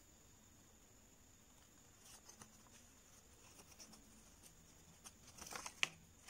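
Folded paper being handled: faint crinkles and small ticks, denser near the end, with one sharp crackle just before it ends.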